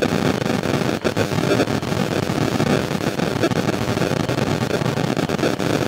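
Steady rushing background noise with no clear pattern, about as loud as the speech around it.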